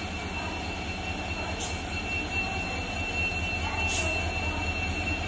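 WDP4D diesel-electric locomotive's EMD two-stroke engine running with a steady low rumble as it pulls the express slowly out, with a thin steady high whine over it. Two sharp clicks come about a second and a half in and again near four seconds.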